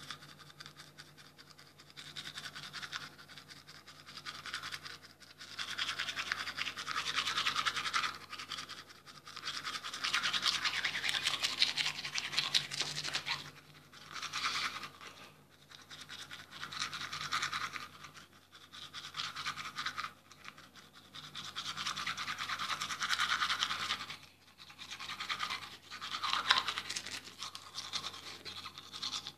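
Toothbrush scrubbing teeth close to the microphone: a wet, scratchy bristle noise that comes in stretches of a few seconds, with short pauses between strokes.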